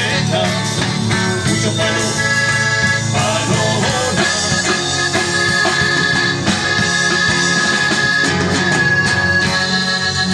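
Live band playing a candombe song on electric guitar, bass and drum kit, an instrumental stretch without singing. A long high note is held through the middle.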